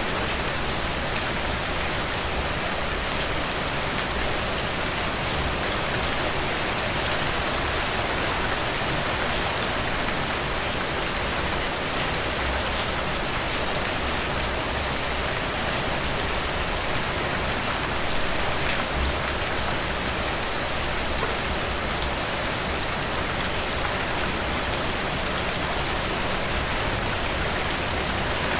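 Steady rain falling on broad leaves: an even hiss of rainfall with a dense patter of small drop ticks on top.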